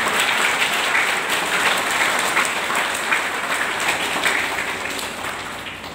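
A hall audience of students and teachers applauding, a dense patter of many hands clapping that thins out and fades toward the end.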